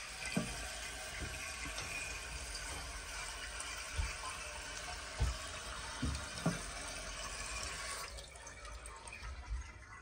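Toilet tank refilling: water hissing steadily through the fill valve of a 1991 Kilgore Alpha toilet, easing off about eight seconds in as the tank fills. A few light knocks from the valve being handled.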